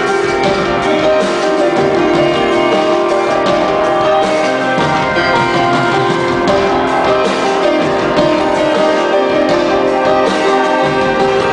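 Live band music in concert: a loud, dense, steady mix of keyboard and other instruments playing continuously.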